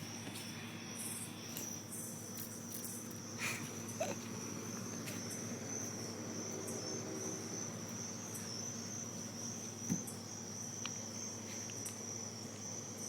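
Cicadas giving a steady high-pitched buzz, with a low steady hum underneath and a few faint knocks.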